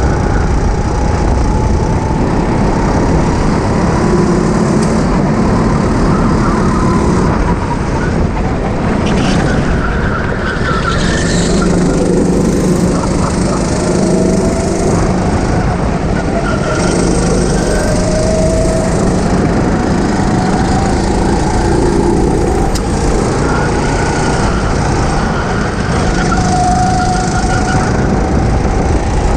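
Go-kart engine running, its whine slowly rising and falling as the kart speeds up and slows, over a constant loud rush of noise.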